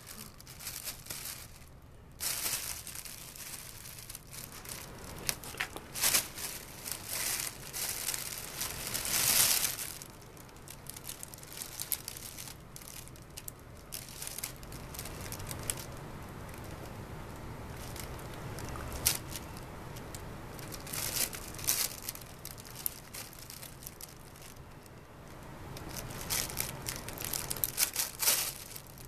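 Fabric cat play tunnel rustling and crinkling in irregular bursts as cats scramble inside it and paw at it, with the loudest bursts about six and nine seconds in and a flurry near the end.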